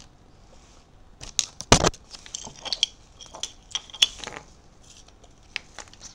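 Handling of a paper leaflet and plastic packaging: scattered crinkles and small clicks, with one sharp knock a little under two seconds in.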